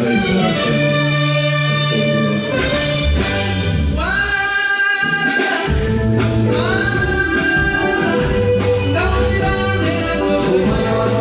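Live band playing a song with a singer's voice over it: a steady bass line under long held sung notes.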